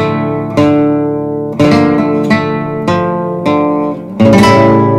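Music: acoustic guitar strumming chords about once a second, each chord decaying before the next, with a last chord struck about four seconds in and left to ring.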